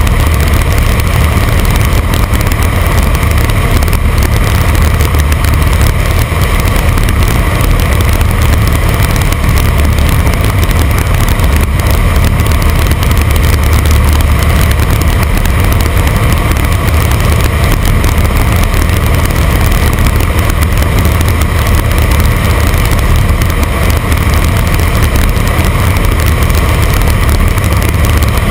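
Jodel 120A light aircraft's piston engine and propeller running steadily in flight, heard loud from inside the cockpit.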